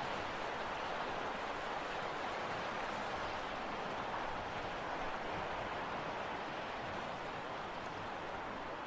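Sea surf washing onto the beach: a steady, even wash of water noise.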